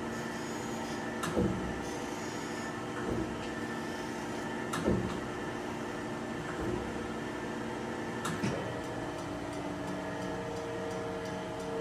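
Chevalier FSG-1228AD hydraulic surface grinder running a spark-out pass, the wheel grinding without further downfeed: a steady hum of the spindle and hydraulics, with a short knock about every second and a half as the table reverses. Near the end a new steady tone joins.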